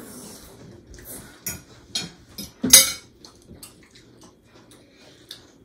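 Scattered clinks and knocks of cutlery and dishes, as at a meal, with one louder knock about two and a half seconds in.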